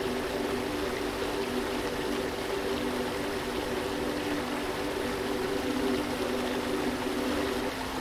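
Steady rush of a waterfall's flowing water, with a soft held chord of background music underneath that shifts near the end.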